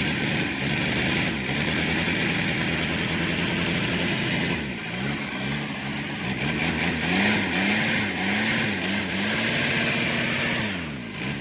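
Diesel engine of a Shengong 20 running, its pitch steady at first and then, about halfway through, rising and falling over and over, roughly once or twice a second.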